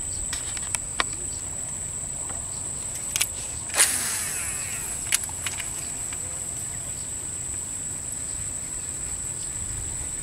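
Steady high insect drone over a low outdoor rumble, broken by a handful of sharp ticks and one louder brief rush about four seconds in that fades over half a second, as a rubber frog lure is worked on marsh water.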